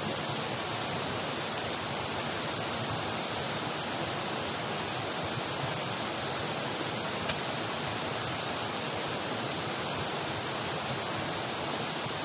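Waterfall rushing: a loud, steady, even roar of falling water, with one brief click about seven seconds in.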